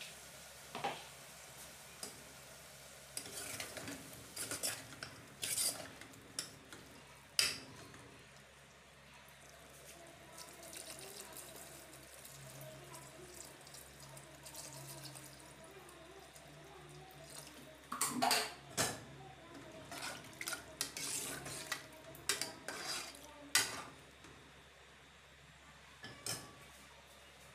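A metal spoon clinking and scraping against an aluminium pressure cooker as moong daal lentils are stirred through the masala, with water poured in partway through and then stirred in with more clatters.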